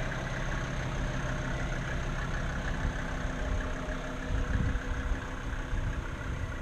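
Mercedes-Benz 250GD's turbocharged 2.5-litre diesel engine idling steadily, already warm.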